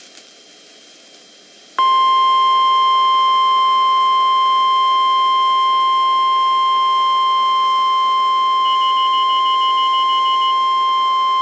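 NOAA Weather Radio 1050 Hz warning alarm tone: one steady, loud, high single tone that starts abruptly about two seconds in and holds for about ten seconds. It is the alert signal that switches on weather-radio receivers ahead of a warning or watch broadcast. Before it there is only faint radio hiss.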